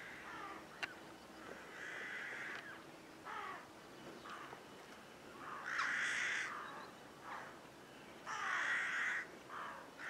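Crows cawing: a series of harsh caws, three longer ones of about a second each standing out among several shorter calls.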